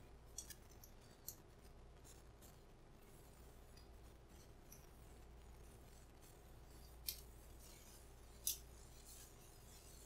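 A few faint, sharp metallic clicks from a hook pick and tension wrench working the pin tumblers inside a Barjan Shur-Lock padlock's keyway, over near silence: two close together under a second in, one just after, then two slightly louder clicks near the end.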